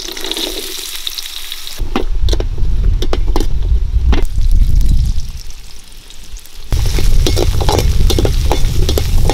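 Shallots, garlic and chopped onion sizzling in hot oil in an aluminium kadai, with a perforated metal ladle scraping and knocking against the pan as they are stirred. The stirring eases off briefly a little past halfway, then picks up again.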